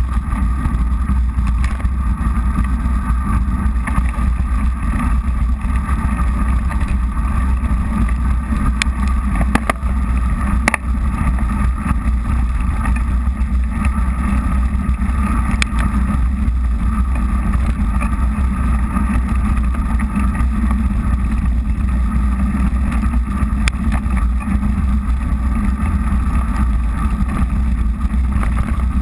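Steady rumble of wind on a bike-mounted action camera's microphone mixed with mountain bike tyres rolling over a wet path, with a few sharp clicks from bumps, the loudest about ten seconds in.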